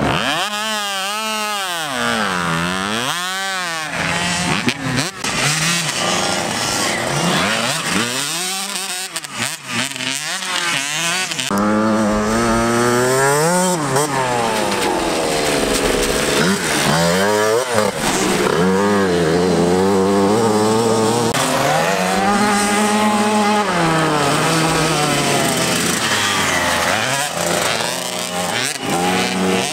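Engines of small youth motocross bikes, 65cc and automatic-class machines, revving as they race, the pitch rising and falling again and again with the throttle.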